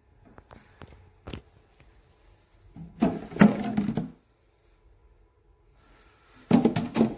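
Handling noises from a plastic portable car fridge and its parts: a few light clicks, then a louder clattering knock lasting about a second, and a quick run of sharp knocks near the end.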